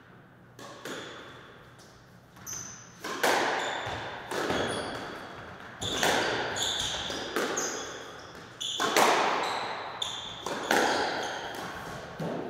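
Squash rally: the ball striking rackets and the front wall at intervals of about one to two seconds, each hit ringing on in the enclosed court. Short high squeaks of court shoes on the wooden floor come between the shots.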